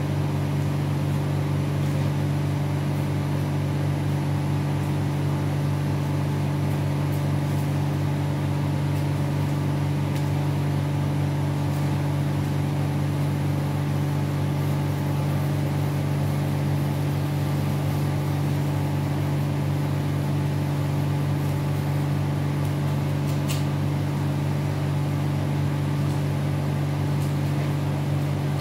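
Steady low hum of a cold room's wall-mounted refrigeration unit and its fan, even and unchanging, with one faint click about three-quarters of the way through.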